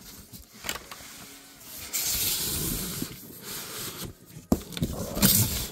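Parcel packaging being handled and opened: rubbing and scraping, with a steady hiss of sliding packaging about two seconds in and a sharp knock a little past four seconds.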